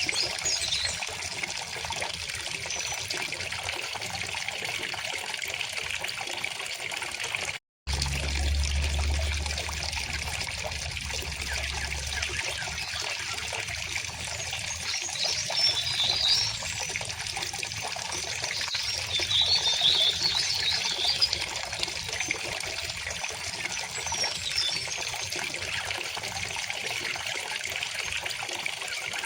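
River water flowing and trickling steadily, with small birds chirping in short high phrases about halfway through and again later. The sound cuts out for an instant about a quarter of the way in.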